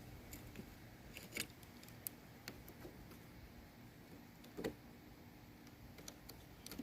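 Faint scattered metallic clicks and a couple of light knocks as the car battery's cable is put back on its terminal with hand tools.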